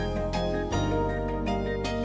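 Instrumental background music with held notes, changing chord about a third of the way in.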